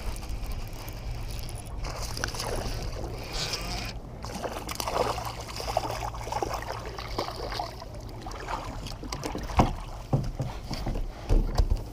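Water sloshing and splashing around a kayak, with scattered knocks and clicks, the loudest ones near the end.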